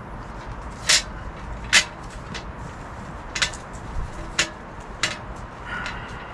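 Handling clicks and knocks as a mesh net's hooks are fitted to the frame of a lightweight camping table: about six sharp clicks, the two loudest in the first two seconds, then lighter taps and a faint rustle.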